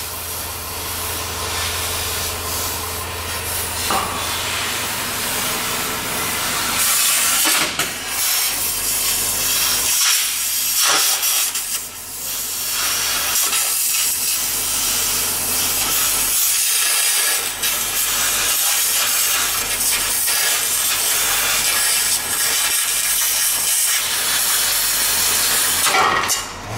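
Car exhaust pipe being cut through underneath the car, a harsh steady hiss of metal cutting with sparks, broken by a few short pauses.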